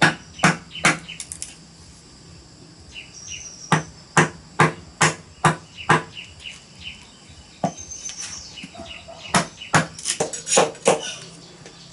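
A hammer striking a metal chisel or punch driven into a green bamboo pole: sharp knocks in bursts, about three at first, then six evenly spaced, then a quicker run near the end.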